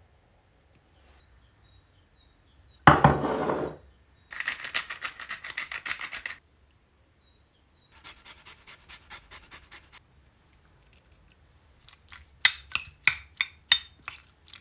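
Lemon rind rasped on a Microplane grater: two runs of quick, even scraping strokes, the first louder. A brief, loud rustle comes about three seconds in, and near the end a spoon clinks and scrapes in a ceramic bowl, mixing the salmon tartare.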